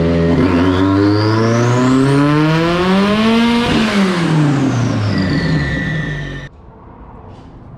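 Subaru EJ25 flat-four engine in a VW Beetle drag car on a chassis dyno, its revs climbing steadily for about three seconds in a pull, then winding back down, with a high whine rising and falling along with it. The sound cuts off suddenly near the end.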